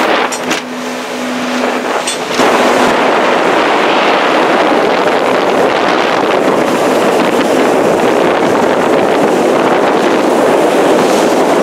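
Motorboat running at speed: engine and rushing water drowned in wind buffeting the microphone. A steady low engine hum is heard at first, then the noise turns suddenly louder about two seconds in and stays loud.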